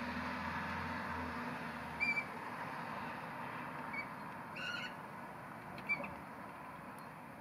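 A few short, high piping calls of Eurasian oystercatchers, the loudest a quick double note about two seconds in, over a steady background hum with a low rumble fading away in the first second.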